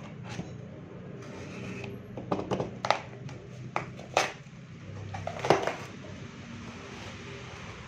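Hands unpacking and handling a laptop keyboard: scattered clicks, knocks and rustles of the packaging and keyboard from about two seconds in, the sharpest knock near the middle, over a steady low hum.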